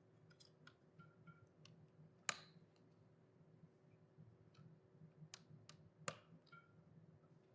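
Quiet, scattered small clicks and taps of small model parts being handled and fitted, with two sharper clicks about two seconds and six seconds in.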